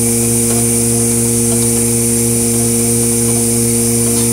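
Cozzoli vial filler and plugger running, a steady electric buzz and hum with an even high hiss above it.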